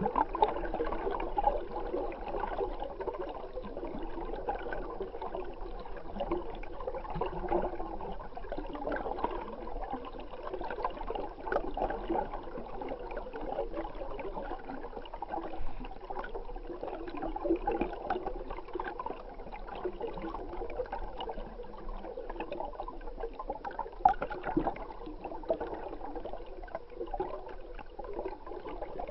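Water gurgling and rushing, heard muffled through a camera held under the water, with a steady fine crackle.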